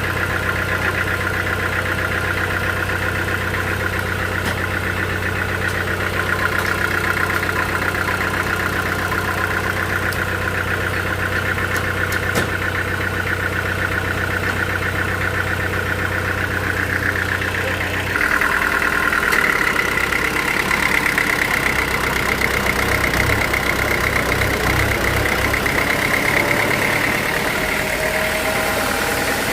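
Sawmill machinery running steadily, a low hum under a high whine. About eighteen seconds in, the hum drops away and the whine rises in pitch and gets a little louder.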